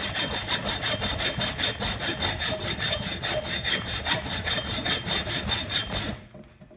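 Hacksaw cutting into an electric motor with rapid, even back-and-forth strokes. It stops suddenly about six seconds in.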